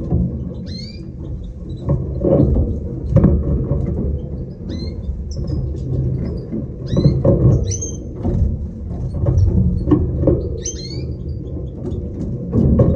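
Caged finches chirping in short, high calls every second or two over a steady low hum.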